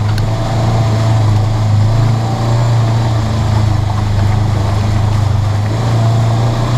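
Polaris RZR 900 side-by-side's twin-cylinder engine running at a steady pitch while the machine drives along a muddy trail, heard from inside the cab.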